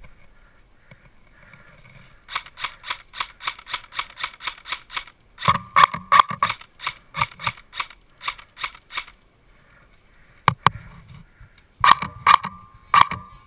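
Airsoft rifle firing rapid semi-automatic shots: a steady string of about five shots a second for some three seconds, then a more uneven string, then a few scattered shots near the end.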